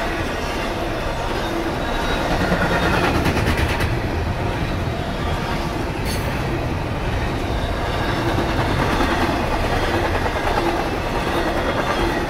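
Freight cars of a CSX intermodal train, carrying single- and double-stacked containers, rolling past at speed: a steady, loud rumble of steel wheels on the rails.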